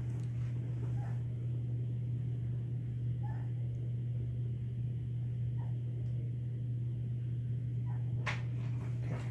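A steady low hum, with a few faint brief sounds and one sharp click near the end.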